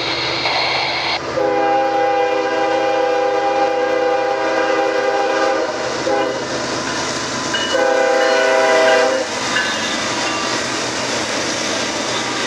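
Norfolk Southern diesel freight locomotive's multi-note air horn sounding a long blast, a short blast and a second long blast as the lead units approach. The engines and wheels of the locomotives rumble past after that.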